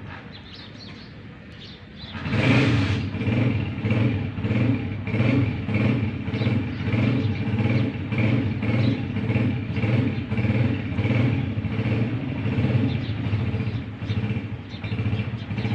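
A cat purring close to the microphone. It starts about two seconds in and then runs loud and low, swelling and fading in regular pulses with its breathing.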